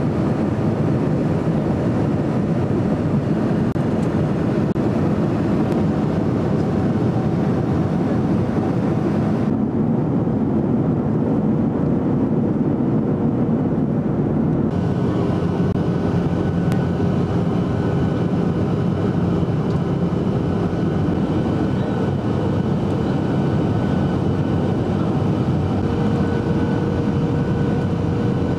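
Steady in-flight cabin noise of a Boeing 737-800 heard from a seat over the wing: a dense rush of CFM56 turbofan engine and airflow noise with a few faint steady tones. Its character changes abruptly twice, about ten and fifteen seconds in.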